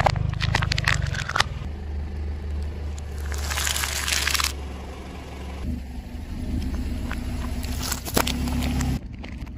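A car tyre rolls slowly over small objects and crushes them, over the low hum of the idling engine. There is a quick run of cracks in the first second and a half, a longer crunch around the middle, and a few sharp cracks near the end.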